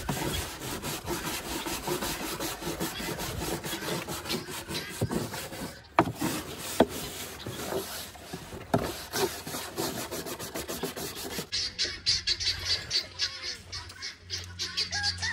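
Rapid, repeated rubbing strokes of someone scrubbing out a water container. The strokes get lighter and thinner near the end, when a low hum and a few chicken calls come in.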